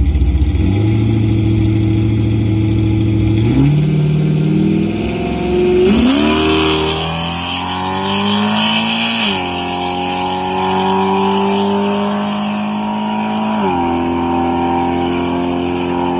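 Small-block Chevy V8 drag truck making a full-throttle pass on motor, without nitrous: the engine pulls hard, its pitch climbing and dropping back at each of several upshifts as it runs away down the strip.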